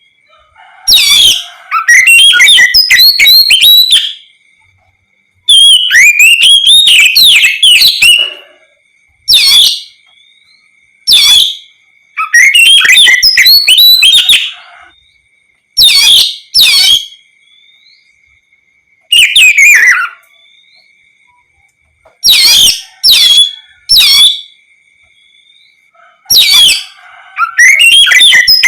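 Oriental magpie-robin singing loudly in repeated bursts of rapid whistled and scratchy notes, each phrase one to three seconds long with short pauses between.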